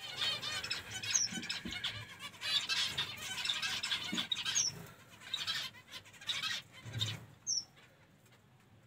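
Zebra finches calling: a busy chatter of short, repeated calls for the first four or five seconds, thinning to scattered calls and dying away near the end. A few dull low thumps are mixed in.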